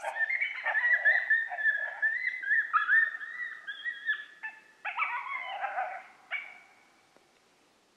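Coyote vocalizing: a long, high, wavering whine-howl that breaks into shorter cries and dies away after about six seconds.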